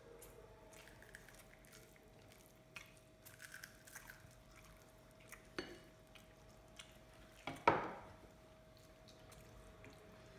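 Fingers mixing rice and curry on a plate: soft squishing with scattered small clicks of fingers against the plate, and one sharp knock a little past halfway. A faint steady hum runs underneath.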